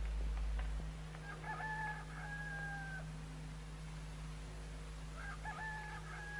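A rooster crowing twice. Each crow lasts about two seconds, with a broken, stepped start and a long held last note; the second begins about five seconds in.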